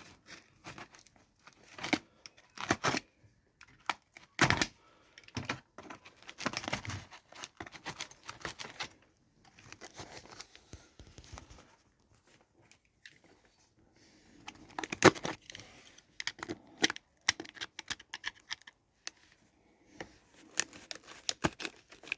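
Parcel packaging being torn open by hand: tape and cardboard tearing with crinkling, in irregular bursts with a short lull about halfway through.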